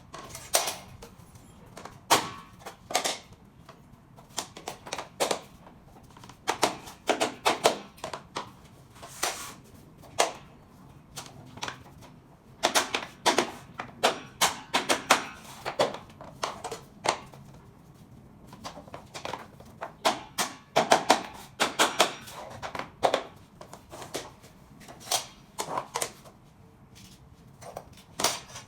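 Irregular clicks, taps and knocks, some in quick clusters, from SPC stone-plastic floor planks being handled and fitted together.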